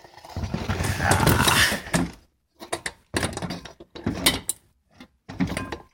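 Handling noise: a rustling scrape for about the first two seconds, then a string of short clicks and knocks.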